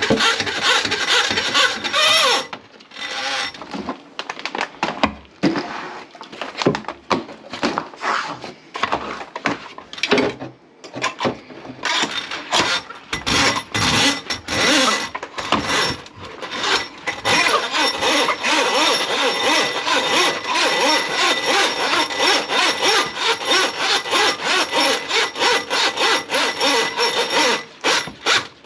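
Rapid back-and-forth scraping strokes, as of a saw or rasp working, several a second. They break off briefly about ten seconds in, then run as a steady rhythm through the second half.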